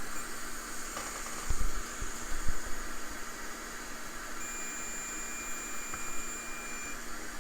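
Multimeter continuity beeper sounding one steady high tone for about two and a half seconds, starting a little past the middle, over a steady background hiss. A few light knocks from handling come in the first few seconds.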